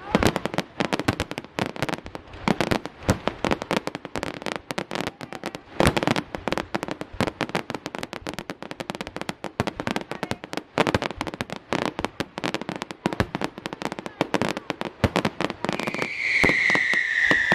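Fireworks display going off: a dense, irregular run of crackles and bangs, a few of them heavier. Near the end comes a loud whistle that slowly falls in pitch.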